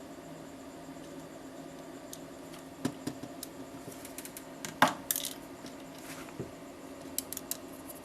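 Scattered sharp clicks and clinks of small hard parts and tools being handled, loudest about five seconds in, over a faint steady hum.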